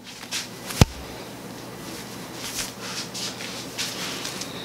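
Soft rustling as a person turns around and runs her hands through her hair, with one sharp knock about a second in.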